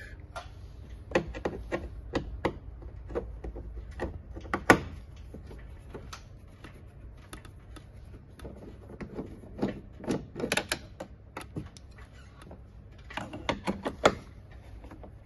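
A screwdriver undoing Torx screws in a truck door's plastic inner panel frame: irregular clicks and taps of the tool against the screw heads and plastic, with a sharper knock about five seconds in and quick runs of clicks around ten and thirteen seconds in.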